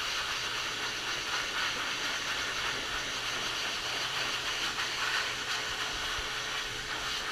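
Pet grooming dryer blowing a steady hiss of air out of its hose while drying a dog's coat.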